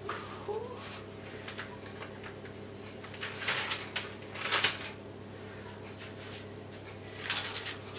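Plastic packet of sliced ham crinkling in short bursts as slices are pulled out and peeled apart, about three times, the loudest near the middle and near the end, over a steady low hum.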